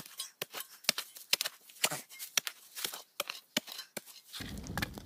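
Spade digging into forest soil: a run of short, irregular crunches and clicks as the blade cuts and scrapes the earth. Near the end a steady low noise comes in under the clicks.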